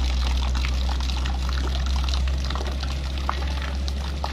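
River water flowing and trickling at the bank, over a steady low rumble.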